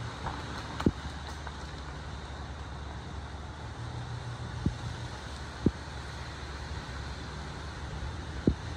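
Pickup truck engine running with a steady low rumble, and four short, sharp thumps scattered through.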